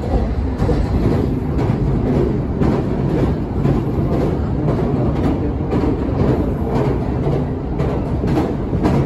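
Train running across a steel bridge, heard from inside the carriage: a steady, loud rumble with regular sharp beats about two or three times a second.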